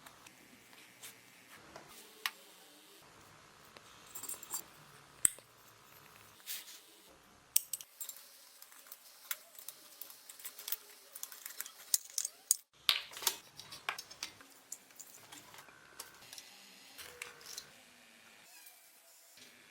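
Scattered light clicks, taps and clinks of small metal parts and tools being handled, with short rustling scrapes in between.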